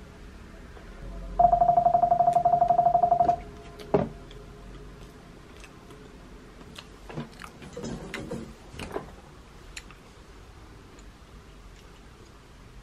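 A loud electronic buzz, pulsing rapidly at one steady pitch, sounds for about two seconds and is followed by a single sharp click; a few light clicks and handling noises come a few seconds later.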